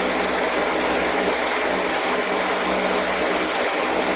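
Household electric fan running steadily: an even rush of air over a constant motor hum.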